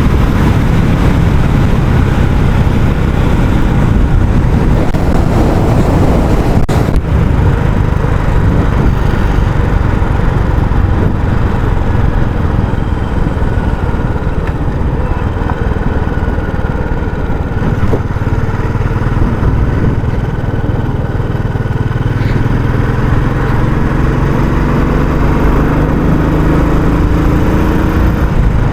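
Royal Enfield Classic 350's single-cylinder engine running through its stock exhaust while riding, a steady thumping drone. A brief click comes about seven seconds in, and the engine note rises over the last few seconds as it pulls harder.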